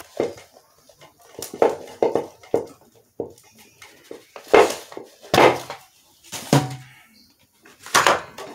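A series of irregular knocks and clattering taps as a homemade cardboard model rocket is handled and set onto its launch pad.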